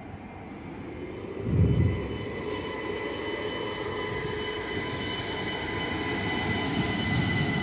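SNCB Desiro ML (class AM08) electric multiple unit pulling in past the platform: running noise of wheels on rail, growing louder, under a steady high whine. There is a brief low rumble about one and a half seconds in.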